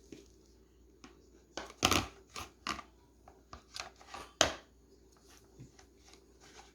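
Irregular sharp clicks, taps and short scrapes of kitchen items being handled, with the two loudest about two seconds in and past the middle.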